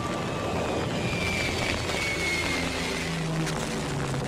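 Propeller aircraft engines droning steadily in an air strike, with a faint high whine that slides slightly lower in pitch partway through.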